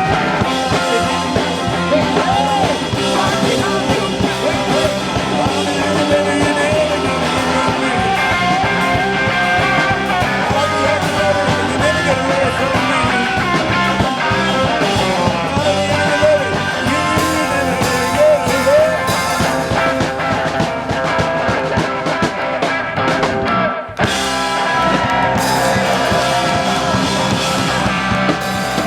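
Rock and roll band playing live, electric guitar over bass and drums; the music drops out for a moment about 24 seconds in, then plays on.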